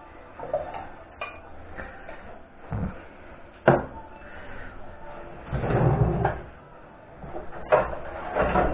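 Kitchen handling noises: scattered knocks and clatter of cookware being set down and a cupboard door, with a sharp knock a little over a third in and a longer clatter in the middle.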